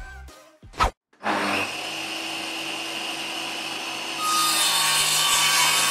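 A woodworking power tool starts up about a second in and runs steadily, then bites into wood about four seconds in, the cutting noise louder and brighter from there on.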